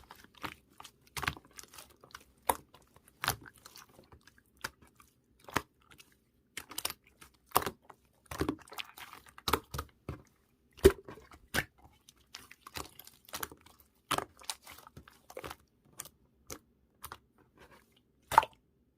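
Hands playing with slime: irregular sharp clicks and pops, one or two a second, with a short stretch of denser crackling about halfway through.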